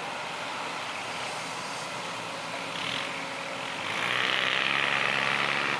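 Heavy diesel engine running steadily, then growing louder about four seconds in.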